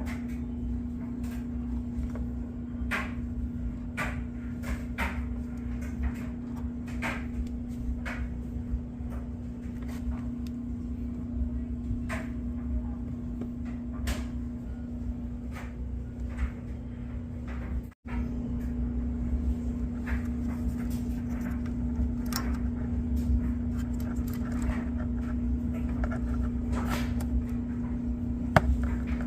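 Scattered clicks and light knocks from hands working on a furnace control board and its wire connectors, over a steady low hum.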